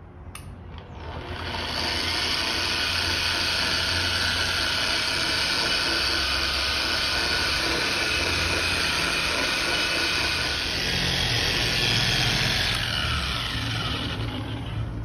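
Corded dual-action (random orbital) polisher running on its slowest setting, its soft buffing pad working compound into scuffed car paint. A click as it switches on just after the start, then the motor comes up to speed over a second or two, runs steadily, and eases off near the end.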